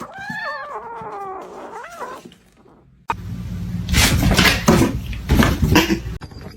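A domestic cat meowing in drawn-out, wavering yowls for about two seconds. After a short pause, a loud stretch of rustling and sharp knocks begins suddenly.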